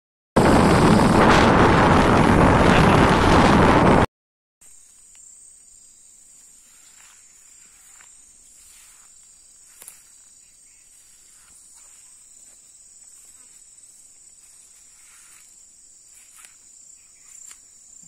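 Loud rush of wind on the microphone while riding a motorcycle, cutting off after about four seconds. After a short gap there is a steady high-pitched insect drone, with faint scattered rustles and ticks.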